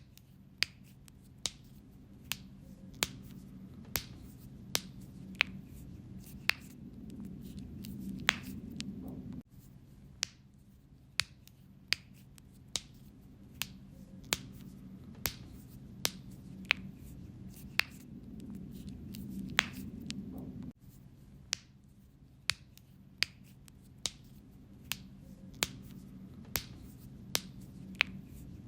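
Sharp clicks, about one or two a second at an uneven pace, over a low hum that slowly swells and cuts off suddenly twice.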